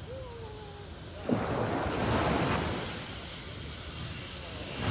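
Sea waves washing onto a beach: one wave breaks suddenly about a second in and swells before easing off, and another starts building near the end. Wind on the microphone.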